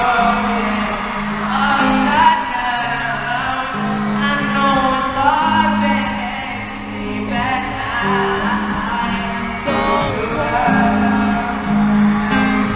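Live pop concert music: a male singer over amplified band backing with steady bass notes, heard through an arena sound system.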